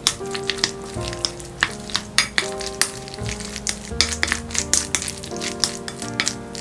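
Wooden spoon stirring macaroni, diced vegetables and mayonnaise in a glass bowl: a fast, irregular run of wet squelches and sticky clicks, over soft background music.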